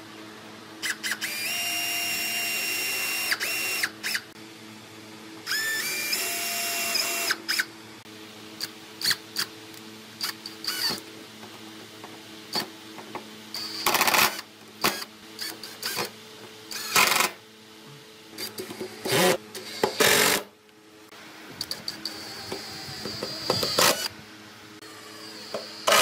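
Cordless drill boring into wood in two runs of about two seconds each, its motor whine stepping up in pitch as it speeds up. Later, an MPT brushless impact driver drives screws into the wood in a series of short, loud bursts.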